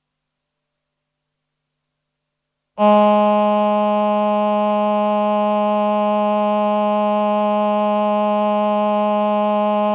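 Roland VP-330 Vocoder Plus synthesizer playing its male human-voice choir sound with delay: silence, then about three seconds in a single note starts abruptly and is held steady.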